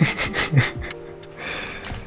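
Background music with steady sustained tones, with a few quick sharp clicks and a breathy snuffle in the first second and a short breathy rush later on.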